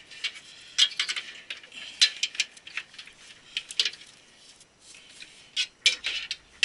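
Cables and their plastic connectors being handled and fitted inside a computer case: irregular sharp clicks and light rattles.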